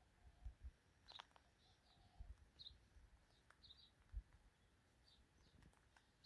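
Faint bird chirps over near silence: short high notes, often in pairs, about once a second. A few soft low thumps on the microphone.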